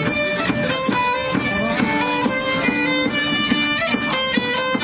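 A fiddle played live: a lively tune of quick bowed notes that change several times a second without a break.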